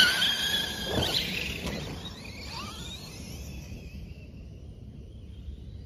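Brushless electric motor of a large RC monster truck whining as it drives past close by, loudest at the start. The whine rises and falls as the truck speeds away and fades out. There is a thump about a second in.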